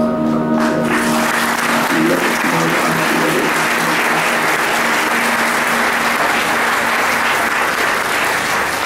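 Music with held tones stops about a second in, and an audience then applauds steadily, with clapping from many hands.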